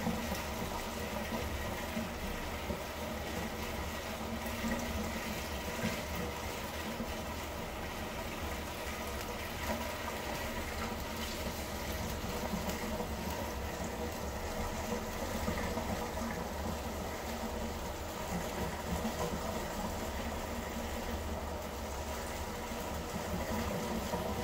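Aquarium filter running: a steady rush of moving water over a low hum, with a few faint steady tones.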